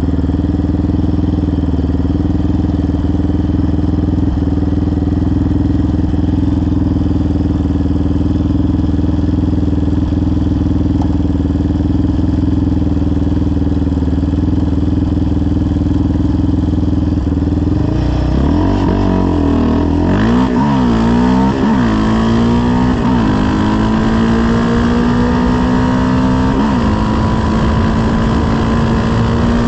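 Yamaha Raptor 700R's single-cylinder four-stroke engine, fitted with a full CT Racing aftermarket exhaust, idling steadily. About eighteen seconds in it is revved in several quick blips, then the revs climb steadily as the quad pulls away, dipping once at a gear change near the end.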